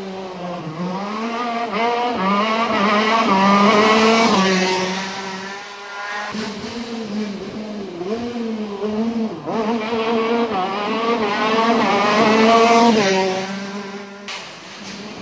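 Racing kart engines on a hill-climb course, revs climbing and falling again and again as the karts accelerate and slow through the bends. The engine sound swells to two loud peaks, about 4 s and 13 s in.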